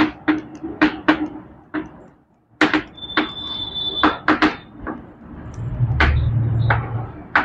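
Chalk writing on a blackboard: a run of sharp taps and clicks as the letters go down, with a high squeak lasting about a second a few seconds in. A low hum comes in for a second or so near the end.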